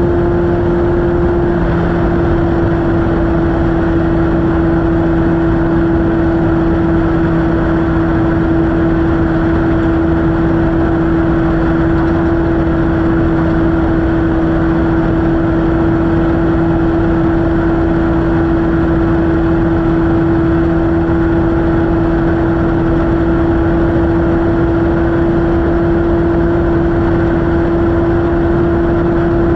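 Off-road race vehicle's engine running hard at a steady pitch, heard from onboard, over a constant loud rush of wind and terrain noise.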